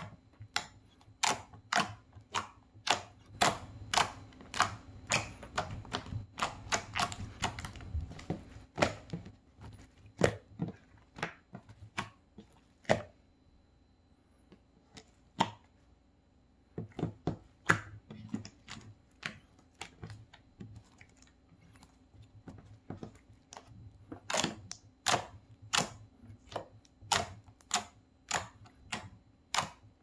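Slime being pressed and kneaded with the fingers, giving sharp wet clicks and pops from air squeezed out of it, about two a second. The clicks thin out to a few scattered pops about halfway through.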